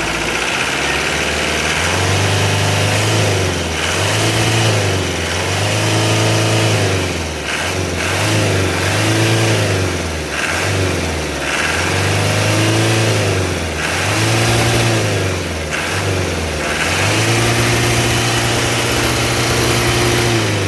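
Isuzu truck's diesel engine revved up from idle and let back down again and again, about eight blips, the last held high for a few seconds near the end.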